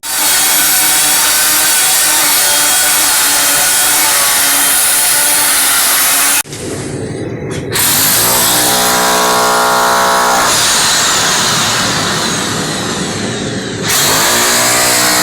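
Electric drill running under load, stopping about six seconds in and starting again a second or so later, its pitch sliding as the speed changes.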